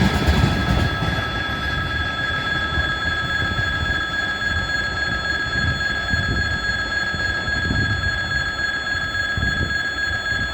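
Turbocharger whistle of a 2TE116 diesel locomotive working under load: a steady high whistle of several pitches over the low rumble of a freight train of tank cars rolling along, the rail clatter dying down about a second in.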